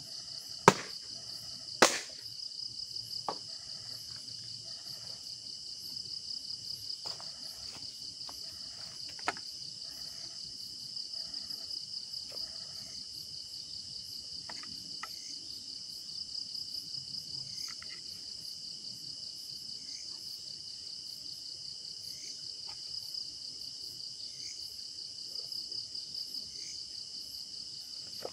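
Steady night chorus of crickets, a high, finely pulsing trill that never stops. A few sharp knocks cut across it, the loudest about two seconds in.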